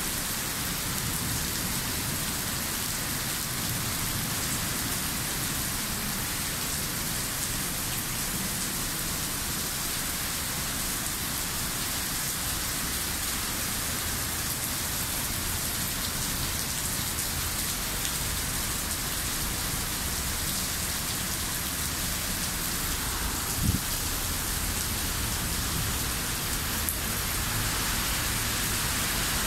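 Heavy rain pouring steadily onto pavement and street, a dense even hiss of a downpour in a thunderstorm.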